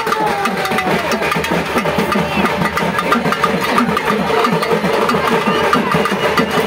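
Fast, unbroken drumming by a troupe of festival drummers playing hand-held drums, over the noise of a dense crowd.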